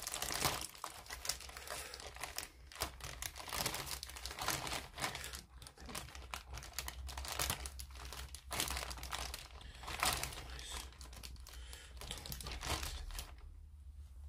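Thin clear polythene bag crinkling and rustling in irregular crackles as it is opened and pulled back off a plastic model-kit sprue, quieter near the end.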